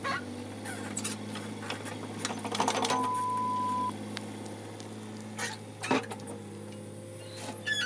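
Kubota KX016-4 mini excavator's diesel engine running steadily, with knocks and clatter from the bucket and the soil it dumps. A brief steady whine sounds about three seconds in, lasting about a second.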